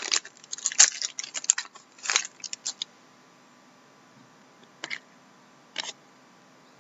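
Hockey card pack being opened and its cards handled: a quick run of crinkling and clicking from the foil wrapper and card stock that dies away about three seconds in, then two single clicks.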